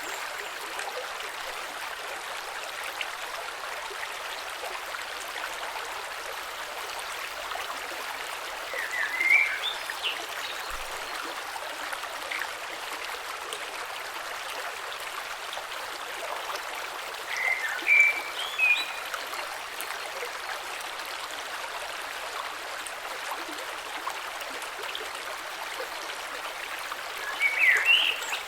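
Gentle creek running over stones: a steady hiss of flowing water. A short, high chirping call sounds three times, about every nine seconds.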